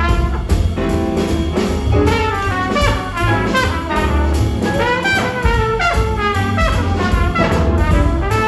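Jazz big band playing swing, with a trumpet soloing out front over the saxophones, trombones, piano, guitar, double bass and drums.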